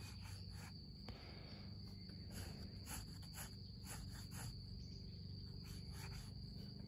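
Light, irregular pencil strokes scratching on sketchbook paper, over a steady high-pitched insect drone.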